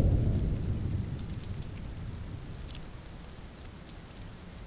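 Steady rain falling, with a low rumble of thunder dying away over the first second or so.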